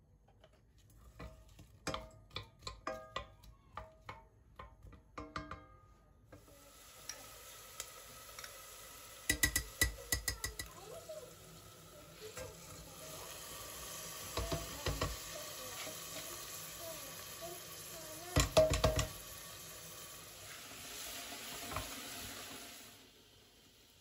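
Chopped onions and vegetables sizzling in hot oil in a stainless steel pot, starting about six seconds in and stopping near the end, with a wooden spoon knocking and scraping against the pot in a few bursts as they are stirred. Before the sizzling, plastic oil-bottle cap clicks and handling knocks.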